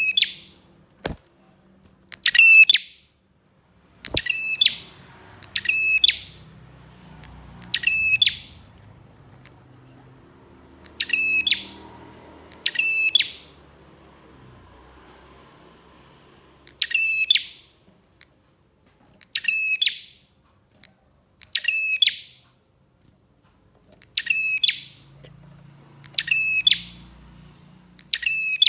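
Prenjak (prinia) calling: a short, sharp, high call repeated about thirteen times at irregular gaps of one to four seconds. Two brief clicks in the first few seconds.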